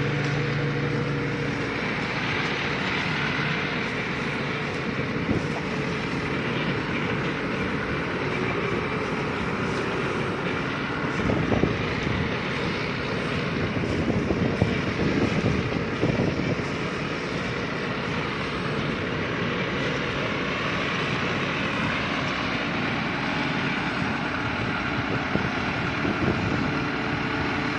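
Rice combine harvester running steadily, its engine and threshing machinery giving a dense continuous din, with a louder, rougher stretch about halfway through.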